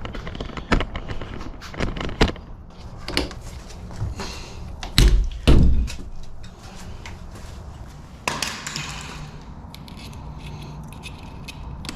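Clicks, knocks and rattles of Defiant door lock hardware being taken off a door, with two heavy thuds about five seconds in.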